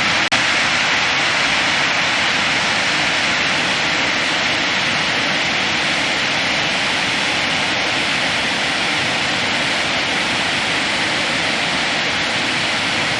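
Waterfall rushing over rocks: a steady, loud rush of falling water.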